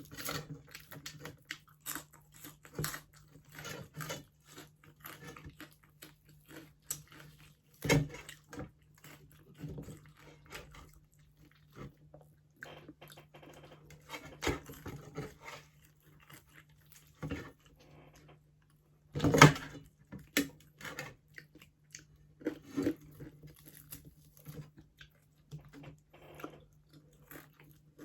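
Close-up chewing and crunching of crispy deep-fried pork skin (crispy pata): irregular crackly bites and chews, with two louder crunches about eight and nineteen seconds in. A steady low hum runs underneath.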